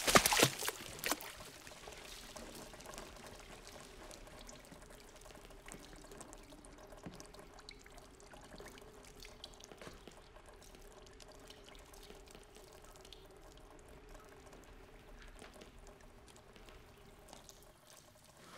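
Thick liquid sludge of a body dissolved in hydrofluoric acid pouring and splattering onto a floor, with several heavy splats in the first second. It then settles into a faint steady trickle with scattered drips.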